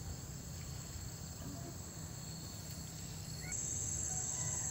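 Steady high-pitched insect chorus that grows louder about three and a half seconds in, over a low rumble.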